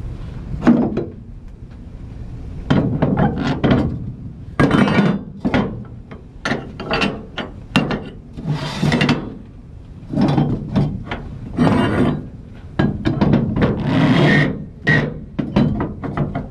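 Flatbed trailer strap winch being worked by hand with a steel winch bar: irregular bursts of ratcheting and metal-on-metal rubbing, mixed with sharp knocks, the loudest about a second in.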